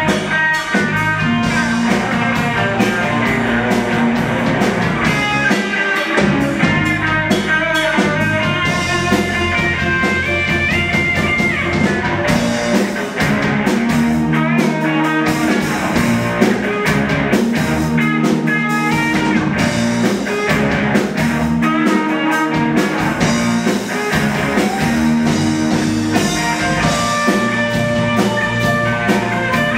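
Rock band playing: electric guitar, bass guitar, keyboard and drum kit, with a steady beat that runs on without a break.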